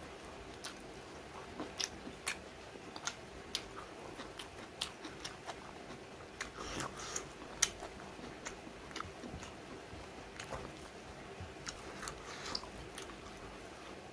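Close-miked chewing of rice and chicken curry eaten by hand: wet mouth clicks and lip smacks at an irregular pace, thickest about seven seconds in.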